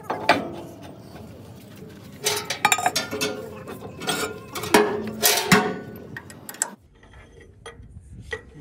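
Quick runs of metallic clicking and clanking from hand tools working on steel parts of a hydraulic pump, which stop abruptly about seven seconds in, followed by a few fainter clicks.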